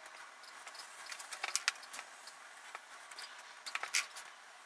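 Faint scattered clicks and light taps of small materials being handled on a workbench: a tape roll and thin strips being laid over a panel. The clicks cluster a little past one and a half seconds in and again near four seconds.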